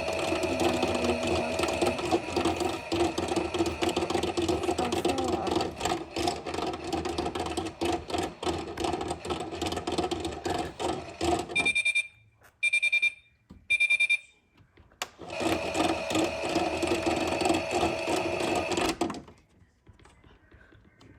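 Washing machine running with a steady motor or pump hum and busy clatter. It breaks off for three short high beeps about a second apart, runs again for a few seconds, then stops.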